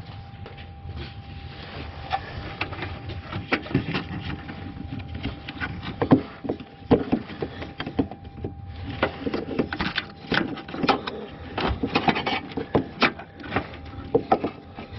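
Irregular clicks, taps and scrapes of hands and a screwdriver working a plastic wiring-harness connector loose from the air-suspension compressor relay.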